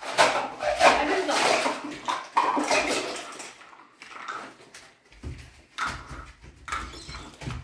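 Voices of young children talking and calling out, loudest in the first three seconds and quieter after that.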